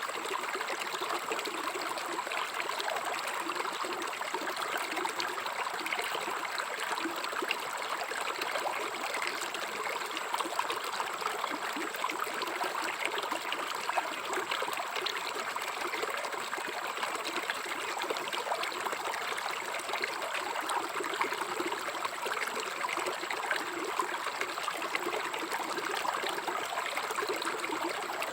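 River water flowing with a steady, unbroken babble.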